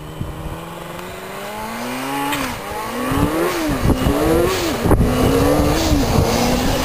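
Quad bike engine accelerating toward the listener and growing louder, its pitch climbing and then rising and dropping back sharply several times in the second half.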